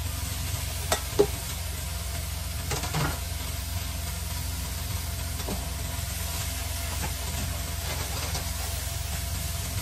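Cauliflower florets sizzling in oil in a stainless steel pan, stirred with a silicone spatula that scrapes and taps against the pan, over a steady low hum. Two sharp knocks come about a second in.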